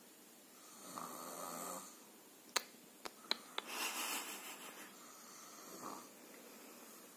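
Baby snoring in its sleep: a rasping snore about a second in, a longer noisy breath around the middle and a shorter one near the end. Four sharp clicks sound just before the middle breath.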